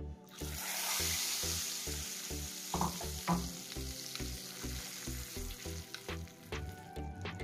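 Hot tempering oil with dried red chillies and curry leaves poured into cold raw-mango water, sizzling sharply. The hiss starts just after the opening and fades slowly over the next few seconds as the pot is stirred.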